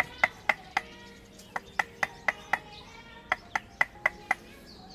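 Repeated sharp strikes of metal on metal, each with a brief ring, coming about four a second in short runs with pauses between.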